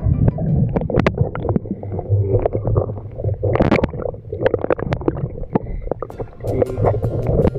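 Muffled water sloshing and gurgling close to the microphone, with many irregular splashes and knocks.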